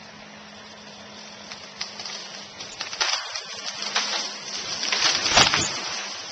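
A felled tree coming down: snapping and the rush of its crown through the air and neighbouring branches build up, ending in a heavy crash as it hits the ground about five seconds in.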